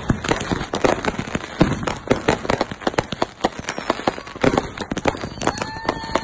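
Fireworks going off: a dense, irregular crackle of sharp pops and bangs from rockets and fountains. A steady whistling tone joins near the end.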